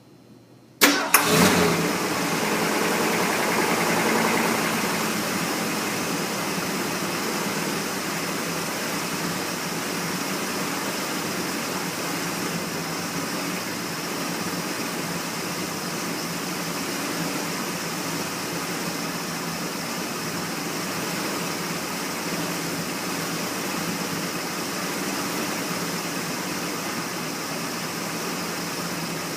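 A 1979 Ford F-150's 400 cubic-inch V8 cranked and starting just under a second in, catching almost at once. It runs a little faster for the first few seconds, then settles into a steady idle, with a knock at first fire-up that the owner takes for rod knock.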